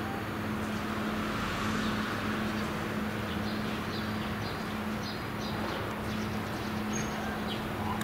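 Tugboat diesel engine running steadily, a low even hum, while it works a barge alongside a quay. Faint short chirps from small birds come and go over it.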